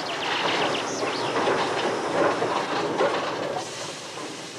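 Small steam locomotive on the move: wheels clattering over rail joints, with steam hissing.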